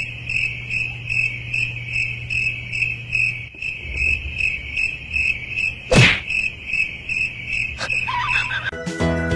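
A high, steady chirping that pulses about three times a second, like an insect, over a low hum that stops partway through. One sharp knock about six seconds in, and music starts near the end.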